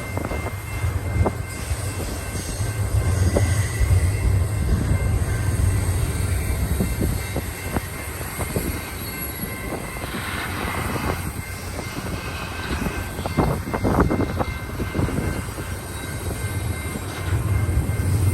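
Double-stack intermodal freight cars rolling past: a steady rumble of steel wheels on rail with scattered clicks and clanks, and faint high wheel squeal.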